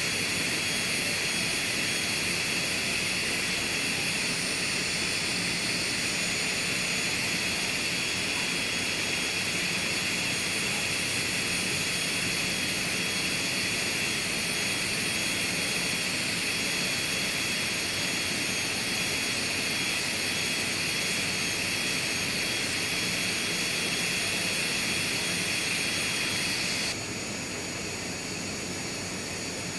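Electric foot-care grinder (a nail and callus drill) running steadily with a high whine, as it files down a corn. Near the end the whine drops out and a quieter, lower hum goes on.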